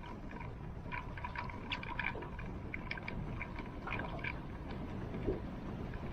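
Water sloshing, trickling and splashing around a small fishing boat, with a steady low rumble and many short irregular splashes.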